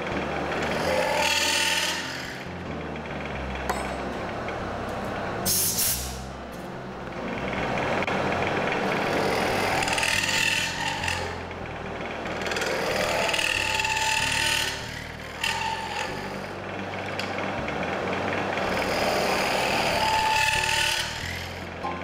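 Wood lathe running while a hand-held turning tool cuts into the inside of a spinning wooden block, hollowing out a wooden glass-blowing mould. The scraping cut swells and fades several times as the tool is pushed in and drawn back, over the steady hum of the lathe.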